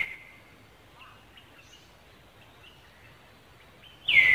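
High-pitched monkey squeals, each sliding down in pitch and then trailing off: one fades out at the start and a second begins near the end. Faint chirps can be heard between them.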